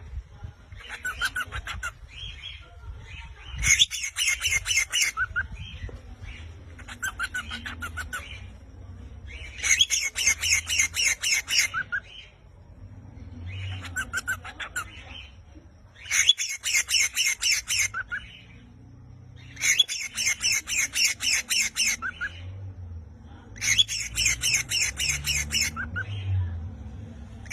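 Parrots calling in repeated bouts of rapid, chattering squawks, each bout lasting one to two seconds and coming every few seconds, with quieter calls in between.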